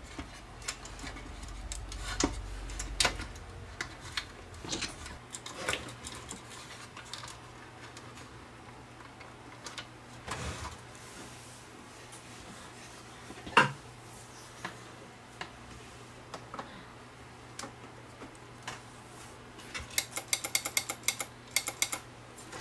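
Handling noises from a sheet-metal emergency light fixture being reassembled: scattered clicks and knocks, one sharp click about halfway through, and a quick rattle of small clicks near the end.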